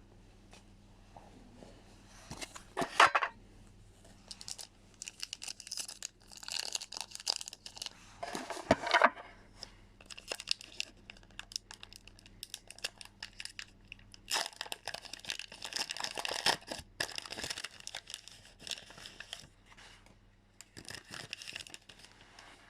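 Foil booster-pack wrapper of Pokémon trading cards being crinkled and torn open by hand, in irregular crackly bursts. The loudest bursts come about 3 and 9 seconds in, with a longer stretch of steady crinkling in the second half.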